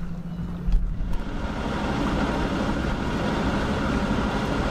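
Steady rumble and rushing noise of a sailing yacht under way, starting about a second in after a quieter low hum.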